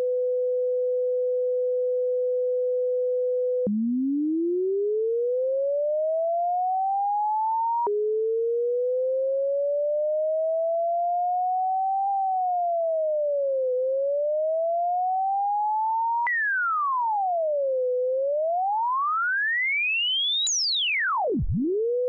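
Computer-generated sine tone whose pitch traces a series of math-function graphs. It holds a steady pitch, then about every four seconds jumps with a click to a new curve. These glide upward, dip in a sharp V, swoop down and up in a smooth U, and finally plunge very low before shooting back up.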